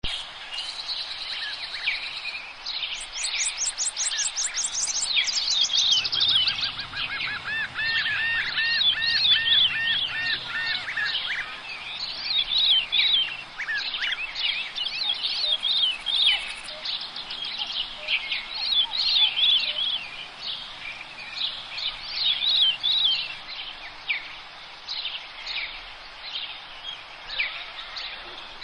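Several songbirds singing and calling, with many quick chirps and trills overlapping; one bird repeats a looping phrase of notes from about six to eleven seconds in. A faint low hum sits underneath for much of it.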